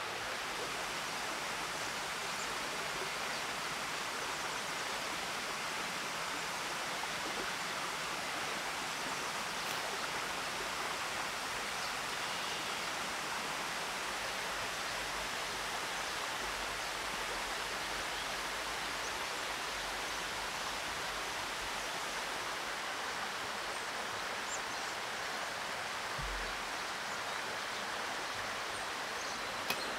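Steady, even rushing forest ambience, a stream-like hiss with no distinct events in it.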